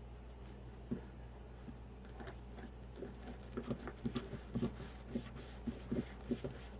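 Faint, irregular light clicks and crinkles from hands working wreath materials such as mesh and pipe cleaners. They start about two seconds in and come thicker toward the end.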